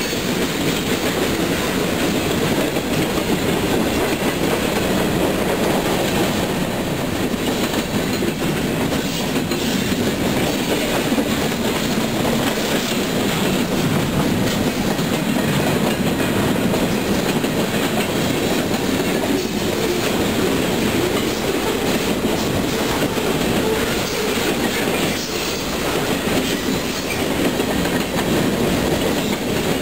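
Freight train cars rolling past at close range: steady, loud noise of steel wheels on rail, clicking over the rail joints.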